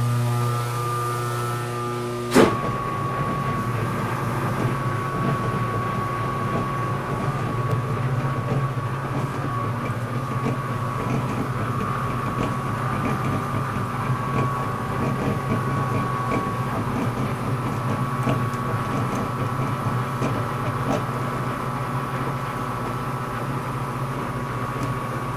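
Metal lathe running steadily as a fiberglass tube is turned, a steady hum with a single sharp click about two and a half seconds in, then a steady running noise with a faint high whine; the machinist says the running sounds a lot better.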